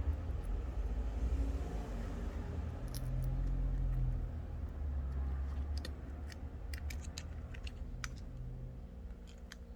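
Small sharp clicks and scrapes of a flathead screwdriver prying at the vibration motor in a smartphone's frame, coming thickest in the second half, over a low rumble of handling.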